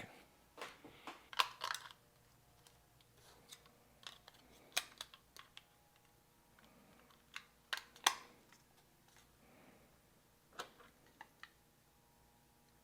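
Scattered faint clicks and taps of small objects being handled, a few louder ones around a second and a half, five and eight seconds in, over quiet room tone.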